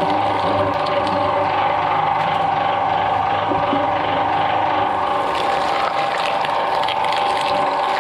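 Twin-shaft shredder running with a steady motor-and-gearbox whine and hum while its toothed cutter blades chew into green papaya, with crunching and snapping of the fruit that gets busier from about five seconds in.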